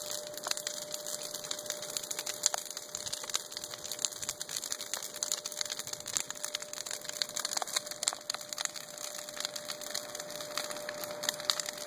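Large bonfire of brush and lumber boards crackling, with a dense run of irregular sharp pops over a steady hiss.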